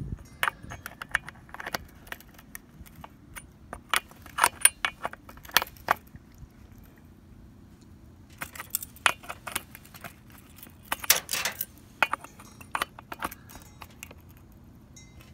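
Metal clicking and jangling of a pocket multi-tool wrench being worked on a Stihl chainsaw's bar nuts to tighten them, its loose folding parts rattling. The clicks come in two flurries, with a pause of about two seconds between them.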